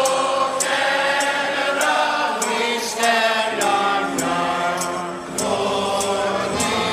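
Music: a choir singing long, held notes over a beat, with a sharp tick about every 0.6 seconds.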